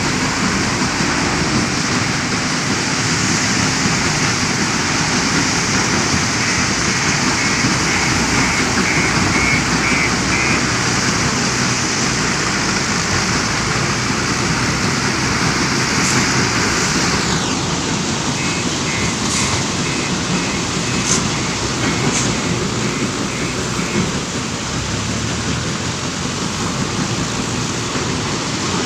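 JCB 530-70 telehandler's diesel engine working over the steady rumble of stone crusher plant machinery and conveyors. A high beeping alarm sounds in two runs of several seconds each, the first about six seconds in and the second past the middle.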